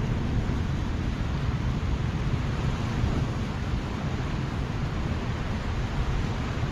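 Wind buffeting the microphone over the steady wash of ocean surf against a rock shelf.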